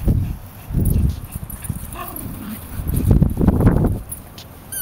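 Dogs playing, with a short high whine about two seconds in among several low, rough bursts of sound.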